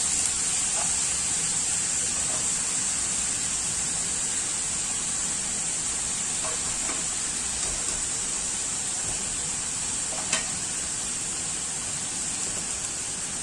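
Beef pieces and onions sizzling in oil in a large aluminium pot, a steady hiss, with a few faint light knocks about halfway and near the end as pressure-cooked beef trotters go in.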